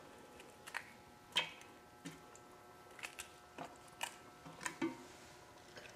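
Quartered raw onion pulled apart by hand and dropped into a stainless steel pot onto raw oxtail: about ten short, faint snaps and soft knocks spread over the few seconds.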